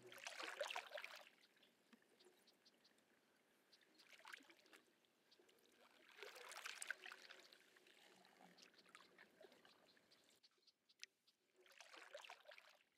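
Faint canoe paddle strokes in calm water: a soft swish with dripping, four times a few seconds apart.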